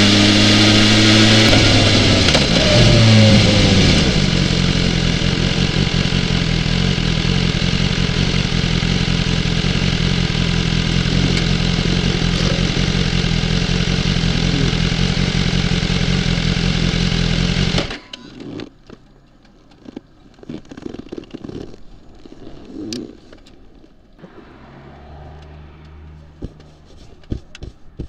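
BMW S1000XR inline-four engine running, its pitch falling about two to four seconds in and then holding steady. About eighteen seconds in the engine sound cuts off abruptly, leaving only faint scattered clicks and knocks.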